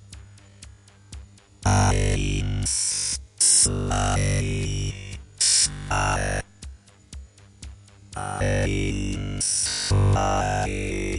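Synthesized sci-fi sound effects: stretches of quiet, even clicking at about four a second, broken by loud blocks of electronic synth sound that start and stop abruptly.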